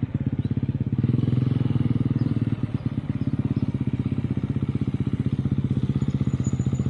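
Husqvarna FE350's single-cylinder four-stroke engine chugging at low rpm, a steady rapid pulse of firing strokes. On the GET ECU it keeps running this low without flaming out.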